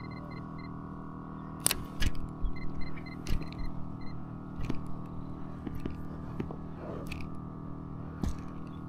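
Scattered sharp clicks and knocks of gear being handled over a steady hum, with two runs of short high electronic beeps, one at the start and one about three seconds in.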